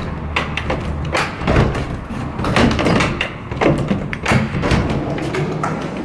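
Sliding glass patio door being worked during a latch test: a run of clicks and knocks from the lock's latch meeting the newly fitted catch and the door moving in its frame, over a low rumble.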